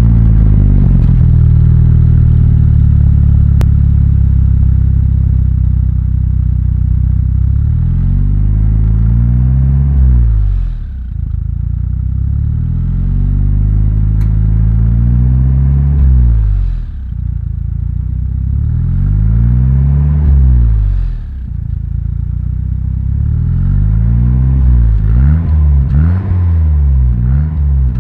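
Volvo 760 Turbo's B230ET 2.3-litre turbocharged four-cylinder heard at its twin tailpipes, breathing through a 3-inch downpipe and 2.5-inch stainless exhaust with two silencers and no catalytic converter. It idles, is revved up and let fall back three times, then blipped quickly several times near the end.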